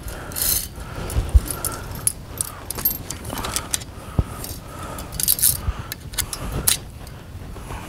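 Metal poles and hanging chains of a Camco tripod grill clinking and jangling as they are handled, with scattered sharp knocks and brief metallic rings. The stopper is being tried on different poles because it will not slide easily on the first one.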